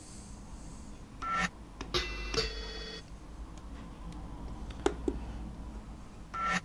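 A spoon-tap sample played from a Synthstrom Deluge, reversed and being re-pitched: short, beep-like metallic tones holding several pitches at once, the longest stopping sharply, heard three times. Two sharp clicks come near the middle.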